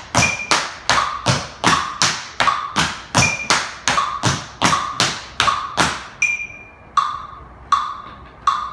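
Metal-plated tap shoes on a wooden floor, stamping and toe-tapping in the tap step 'side step stamp': crisp, ringing strikes about three a second. About six seconds in, the rhythm slows to four single strikes.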